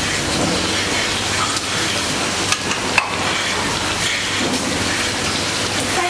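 Steady rushing, rain-like hiss of a working milking shed, with two short clicks about two and a half and three seconds in.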